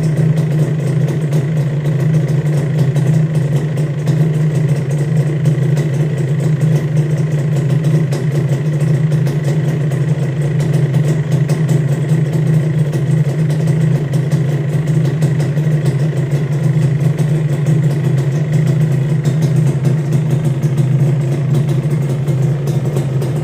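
Suzuki Satria 120 cc single-cylinder two-stroke engine idling steadily through an expansion-chamber exhaust, freshly rebuilt and running smoothly.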